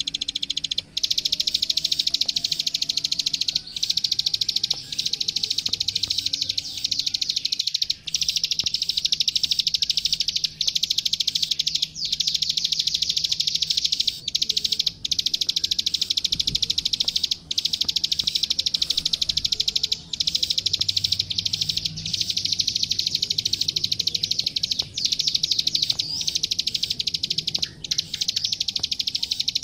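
A klik-klik, the small paddyfield prinia, singing a continuous, very rapid, high-pitched chattering trill, broken by short pauses every few seconds.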